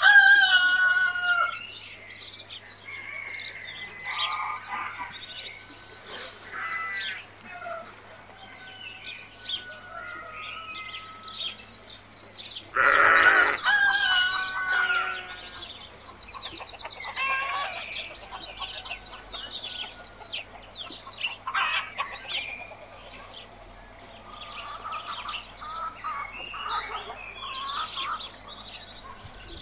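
Small birds chirping and trilling, many calls overlapping, with a louder, longer call about thirteen seconds in.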